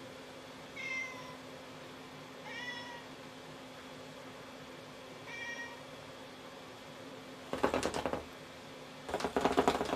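A cat meows three times, short calls a couple of seconds apart. Near the end a rapid rattling clatter comes twice, louder than the meows, from the wooden track toy as its lit ball runs around inside and the cats bat at it.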